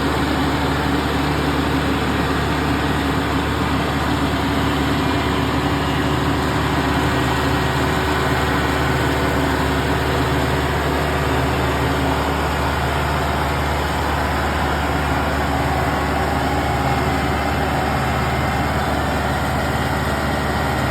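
Kubota SL54 tractor's diesel engine running steadily under working load while puddling a flooded rice paddy, with an even, unchanging drone.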